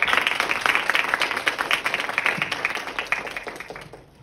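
Audience applauding, with many hands clapping at once. The clapping dies away near the end.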